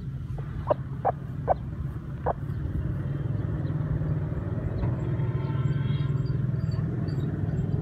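Aseel chickens giving a few short, sharp clucks in the first couple of seconds, over a steady low rumble.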